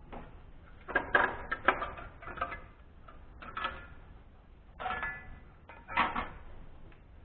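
Metal tools and parts clinking and clanking in several short clusters, some strikes leaving a brief metallic ring, during engine teardown work.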